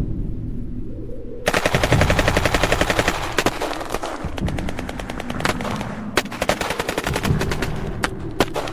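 Battlefield gunfire sound effect: a low rumble, then about a second and a half in a long burst of rapid automatic machine-gun fire breaks out. It gives way to scattered single shots and short bursts.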